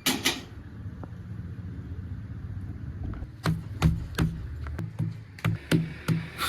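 Diesel engine of a backhoe loader running steadily. A sharp clatter comes at the start, and from about halfway there is a run of irregular sharp knocks, a few per second.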